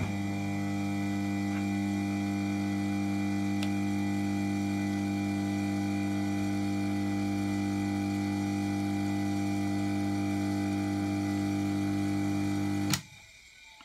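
Three-phase induction motor from a Hotpoint Aqualtis washing machine, wired straight to single-phase 220 V mains, running with a loud steady hum at about 2,984 rpm, just under the 3,000 rpm that matches the 50 Hz supply. About 13 seconds in it is switched off with a click and the hum stops suddenly.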